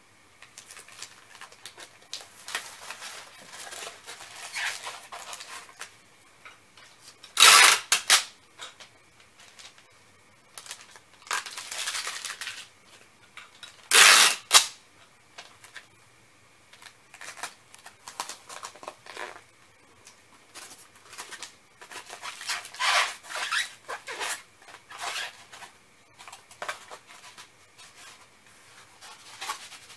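Rustling and scraping of paper, plastic and cardboard packing materials being handled, broken twice, about a quarter of the way in and about halfway, by a loud rip of under a second: packing tape being pulled off the roll to seal a shipping box.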